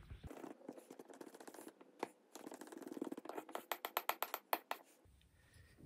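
Wooden stirring stick working through thick non-drip gloss paint in a metal tin, scraping against the tin's sides, with a quick run of sharper knocks a little past halfway before the stirring stops about five seconds in.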